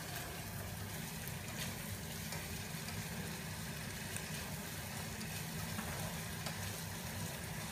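Onion and mushrooms sizzling as they fry in butter and olive oil in a stainless steel pot, a steady hiss, with a few faint clicks from stirring.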